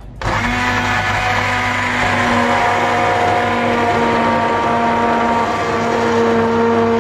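Stick hand blender switched on at the start and running at a steady pitch, its blade puréeing chunky tomato soup in a pan.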